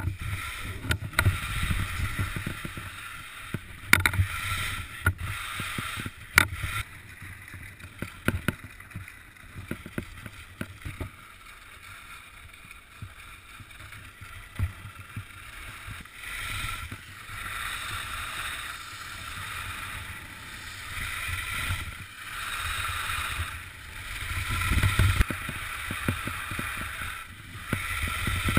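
Skis hissing and scraping over snow during a downhill run, swelling and easing with the turns, with wind rumbling on the microphone. Sharp clicks and knocks come in the first several seconds.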